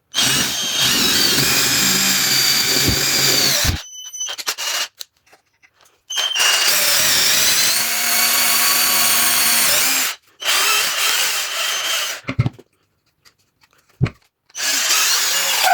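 Electric drill with a lengthened bit boring a pencil-sized hole into a block of wood. It runs in several stretches of about two to four seconds, with short stops between, and starts again near the end.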